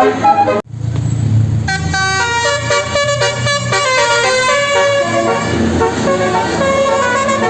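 Bus telolet musical air horn (Basuri type) playing a fast melody of tones stepping from pitch to pitch. It breaks off abruptly about half a second in, leaving about a second of low engine rumble, then the horn melody starts again and carries on.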